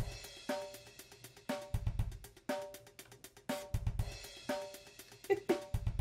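Background music with a steady drum-kit beat: a low kick about every two seconds, hi-hat and cymbal strokes, and short repeated chords.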